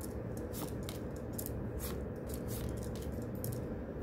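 Tarot cards being leafed through by hand, their edges sliding and flicking against each other in short, irregular swishes and clicks over a steady low room hum.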